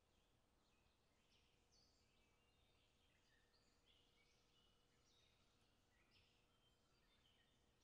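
Near silence, with faint high chirps scattered throughout over a faint steady hum.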